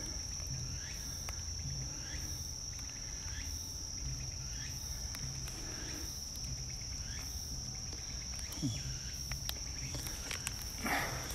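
Insects droning steadily at one high pitch, with a brief rustle near the end.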